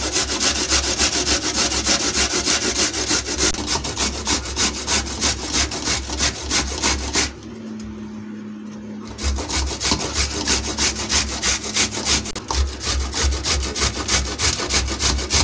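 Boiled lotus stem being grated on a stainless steel box grater: rapid, rhythmic rasping strokes. The strokes stop for about two seconds past the middle, then resume.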